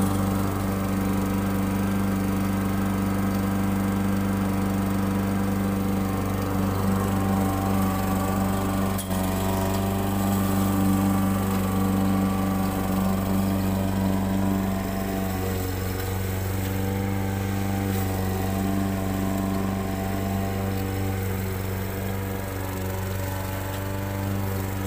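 Gasoline walk-behind push mower running steadily while cutting grass. It grows a little fainter over the second half as the mower moves away.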